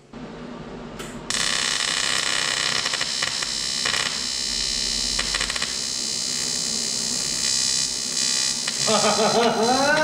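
Eastwood TIG 200 welding arc buzzing steadily. It strikes about a second in, with a few brief surges as the torch trigger kicks in the high-current pulse. A voice comes in near the end.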